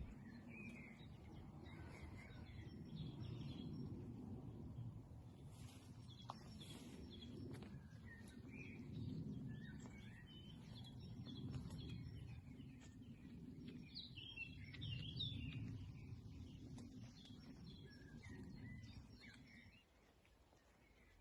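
Small birds chirping and calling faintly on and off, over a low, uneven rumble that drops away shortly before the end.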